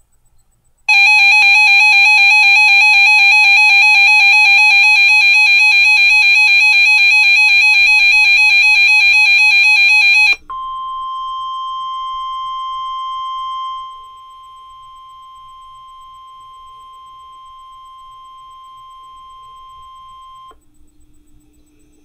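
A weather alert radio sounds its warbling alarm for about nine seconds. It then gives way to a steady single tone near 1 kHz, the NOAA Weather Radio 1050 Hz warning alarm tone, which drops in level a few seconds in and stops about ten seconds later. This marks the start of a weather alert broadcast.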